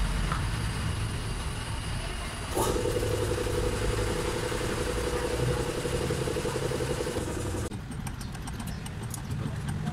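Hyundai Starex's D4BB four-cylinder diesel engine running at idle. A steady buzz comes in with a click about two and a half seconds in and stops abruptly near eight seconds, leaving the engine's rumble with light regular ticking.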